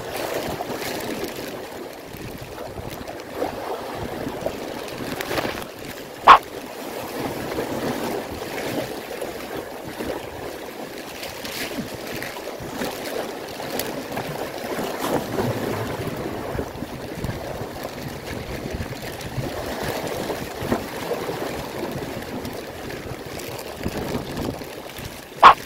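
Wind and choppy sea water washing against a concrete breakwater, with raincoat fabric rustling over the microphone. A single sharp knock comes about six seconds in, and another near the end.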